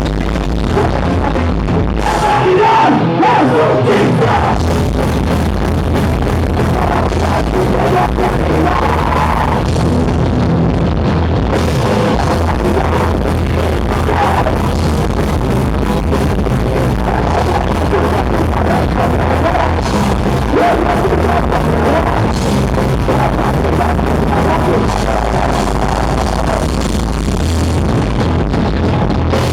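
Punk rock band playing live at full volume, a dense, steady wall of band sound.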